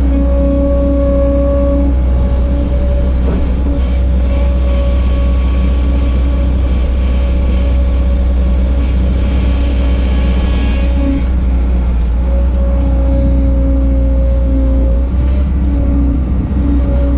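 A 1988 Bobcat 743 skid steer running steadily at working speed. The deep engine rumble carries a steady whine that fades and returns, and a higher hiss swells for several seconds in the middle.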